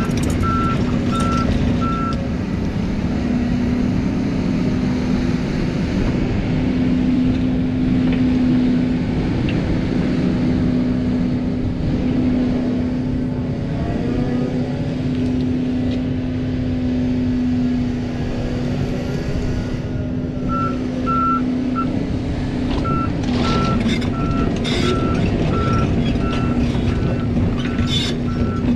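Volvo EC300EL hybrid excavator's diesel engine running steadily under working load as it digs and swings. Its warning alarm beeps repeatedly for the first couple of seconds and again through the last third. Rock knocks and clatters several times near the end.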